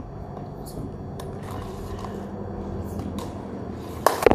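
A Rubik's cube clattering onto a hard surface in a trick-shot attempt: a few sharp knocks close together near the end, over a steady low background hum.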